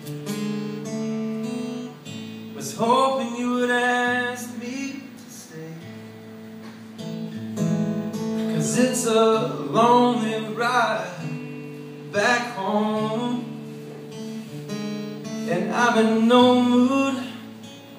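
A man singing to his own strummed acoustic guitar, sung lines coming in four phrases over steady chords.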